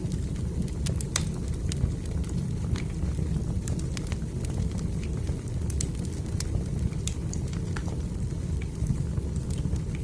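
Fire burning in a fireplace: a steady low rumble of flame with scattered sharp crackles and pops at irregular moments.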